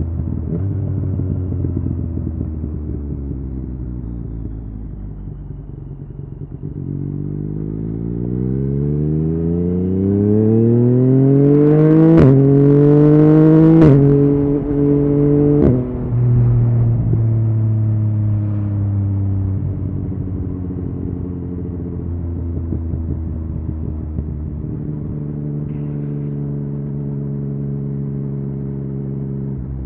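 Yamaha MT-09 inline-three with an Akrapovic exhaust, running steadily, then accelerating hard from about a quarter of the way in with the pitch climbing. It snaps through two quick upshifts, each with a sharp crack, then backs off suddenly and settles into a steady lower cruise.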